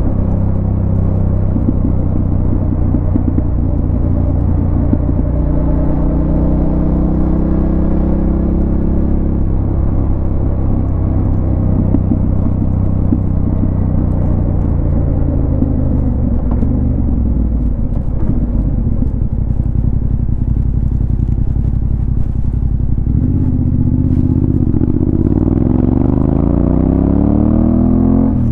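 Yamaha Ténéré 700's parallel-twin engine running on the move. The revs fall away about two-thirds of the way through, then climb steadily under acceleration near the end.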